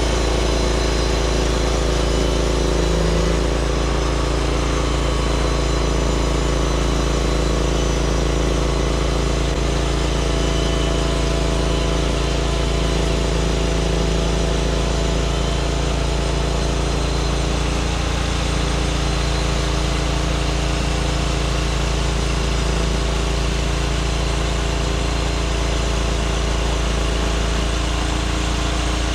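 Norwood MX34 portable bandsaw mill running steadily, its small gas engine holding an even speed.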